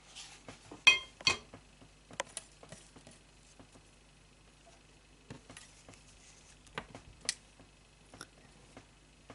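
Two sharp clinks about a second in, as a hot glue gun is set down on a hard surface, followed by scattered light clicks and rustles of a bundle of thin wire stems being handled.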